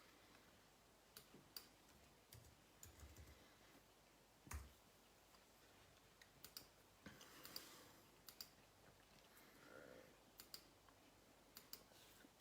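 Faint, scattered clicks of a computer mouse and keyboard over quiet room tone, with a slightly louder knock about four and a half seconds in.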